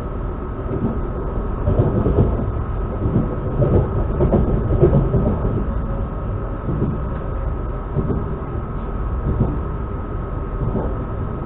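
Electric commuter train running, heard from inside the carriage: a steady rumble of wheels on track with a constant high whine, and irregular knocks that are louder a few seconds in.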